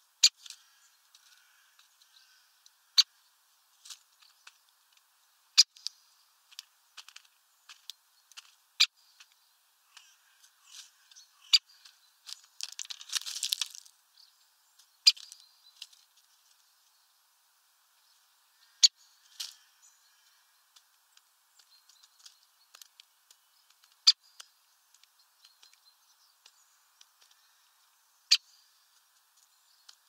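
Great spotted woodpecker pecking at sunflower seeds on a feeder tray: sharp single knocks every few seconds, with fainter ticks of seed husks between them. A brief rustling burst comes about halfway through.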